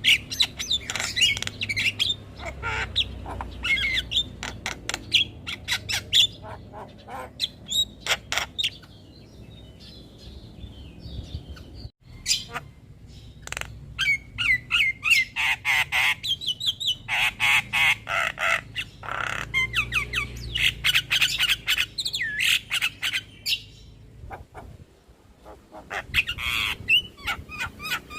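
Javan mynas (jalak kebo) calling: rapid harsh chattering and squawks mixed with whistled phrases, with a brief break about twelve seconds in and the densest calling in the second half.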